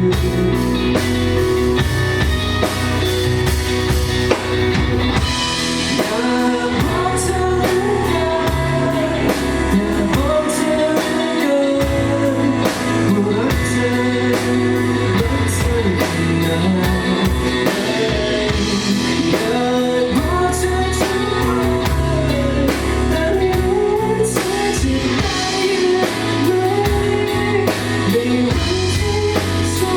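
Live band playing a rock song with drum kit, bass and guitars, a melodic lead line carried over the top.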